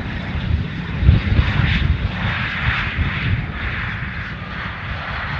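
Jet aircraft engines as a plane passes: a low rumble under a broad hiss that swells about two seconds in and then slowly eases.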